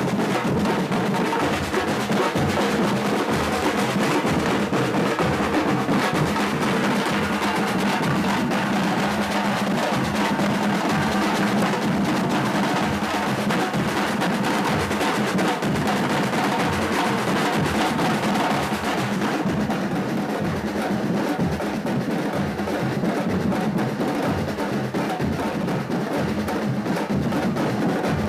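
Batuque drum group playing: several drums and percussion beating out a steady, dense rhythm without a break.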